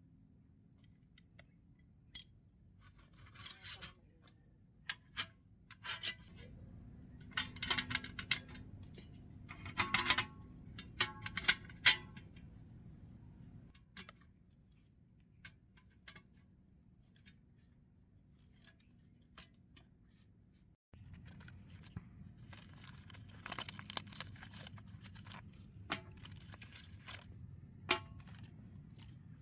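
Objects being handled: scattered clicks, clatters and rustling, busiest a third of the way in and again in the last third, with a faint steady high-pitched tone underneath.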